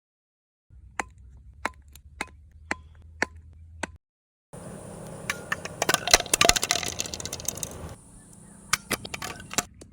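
Hard plastic toy pieces clicking and clattering as they are handled: first single sharp clicks about two a second, then, after a short break, a denser run of clicks and knocks that thins out near the end.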